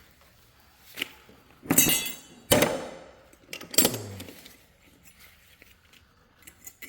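Metal clanking as a steel brake caliper bracket is handled and set back in place over a new brake rotor: four knocks, some ringing briefly, then a few light ticks near the end.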